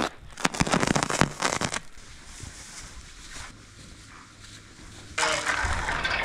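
Black plastic haylage bale wrap crackling and crinkling as it is handled, dense for the first two seconds. About five seconds in, a bucket of feed is poured into a sheep trough, a steady rushing rattle.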